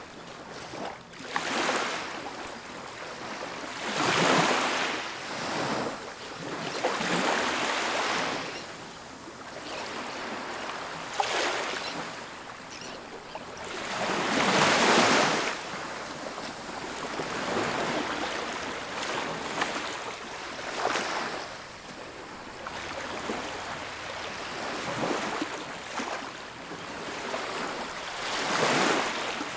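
Ocean waves breaking and washing up a beach: surges of surf noise that swell and fade every few seconds, the biggest about four seconds in, about halfway through and near the end.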